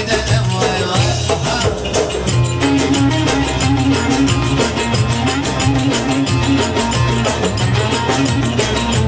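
Live Turkish dance music: frame drums and a darbuka beat a quick, steady rhythm under a bağlama melody. The melody grows stronger about two and a half seconds in.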